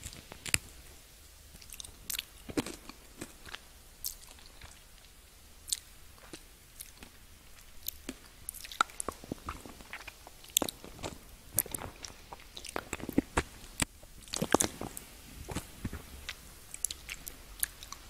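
Mouth sounds of someone eating candy: irregular sharp clicks and crunches as it is bitten and chewed, with denser flurries about halfway through and again near three quarters of the way.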